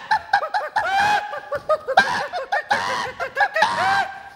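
A quick run of short, high-pitched squeaks, each one rising and falling in pitch, coming in overlapping clusters with brief gaps.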